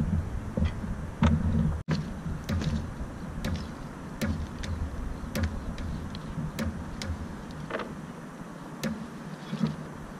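Mass of old rusty chain hanging from a sailboat's bow, clinking and knocking as it sways: sparse, irregular sharp clicks, about one a second, over a low rumble of wind on the microphone that is heavier in the first couple of seconds.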